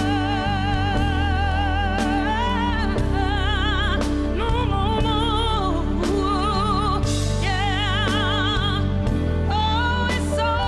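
A woman singing long, drawn-out notes with wide vibrato and runs, in a slow soul power-ballad style, over a backing track with sustained low notes.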